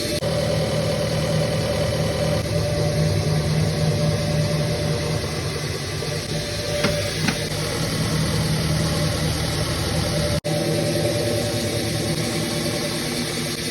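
CNC milling machine running and cutting metal: a steady machine drone with held tones, two sharp ticks about seven seconds in, and a brief dropout about ten seconds in.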